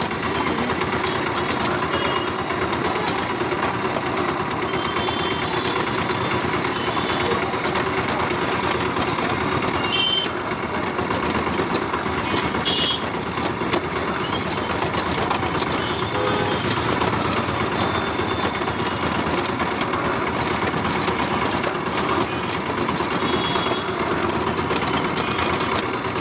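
Powered sugarcane juice press running steadily, its steel rollers crushing cane stalks fed through by hand: a steady mechanical drone, with a couple of brief clicks near the middle.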